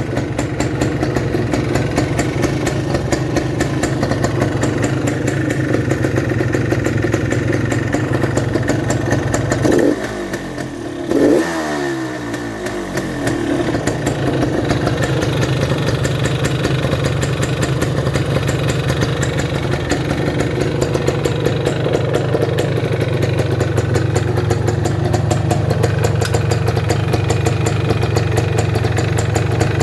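1978 Yamaha DT400's freshly rebuilt two-stroke single-cylinder engine running on its first start, mostly at a steady idle, with a brief drop in revs and a quick blip of the throttle about ten to twelve seconds in.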